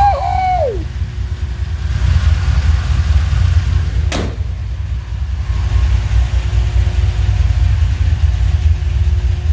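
Chevy C10's LS V8 engine idling with a steady low rumble. A single sharp click about four seconds in.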